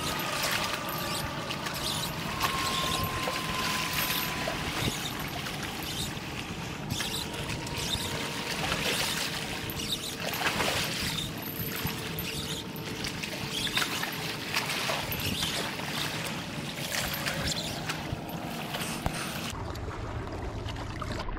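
Small waves lapping and sloshing against shoreline rocks: a steady watery wash with scattered light clicks and splashes.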